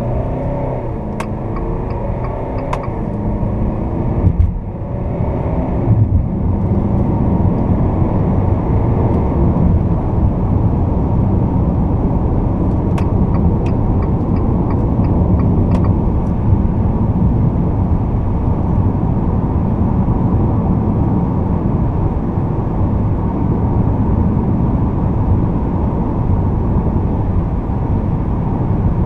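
Fiat Toro's 2.0 four-cylinder turbodiesel heard from inside the cab, its note rising as the pickup accelerates and dipping briefly about four seconds in, then a steady highway cruise with engine drone and road and wind noise. A few faint clicks sound within the first sixteen seconds.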